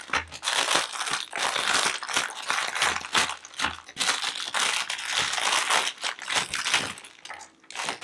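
Clear plastic wrapper crinkling as it is pulled off and unwrapped from a diamond painting coaster kit, with irregular crackles that ease briefly near the end.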